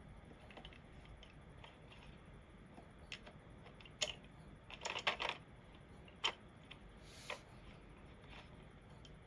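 Sparse clicks from a computer keyboard and mouse, one or two at a time, with a quick run of several keystrokes about five seconds in.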